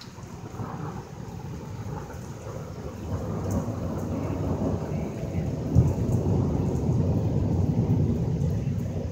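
Rolling thunder: a deep rumble that builds steadily in loudness and peaks about six seconds in, over steady rain.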